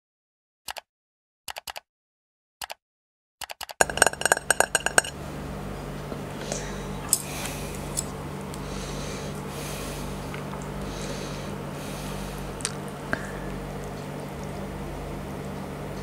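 Subscribe-button intro sound effect: a few sharp clicks over dead silence, then a quick burst of ringing, chiming clicks about four seconds in. After that comes a steady low room hum with a few soft clinks and scrapes of cutlery against a plate.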